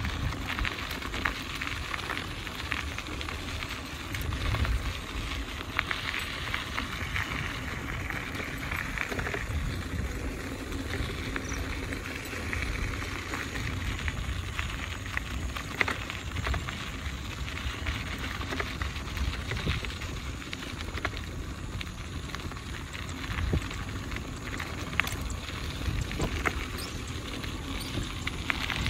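Outdoor ambience of wind on the microphone: an uneven low rumble under a steady hiss, with scattered light clicks and crackles.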